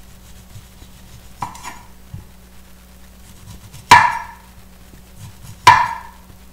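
Kitchen knife cutting through an orange and striking a wooden cutting board: a faint knock about a second and a half in, then two loud, sharp knocks nearly two seconds apart.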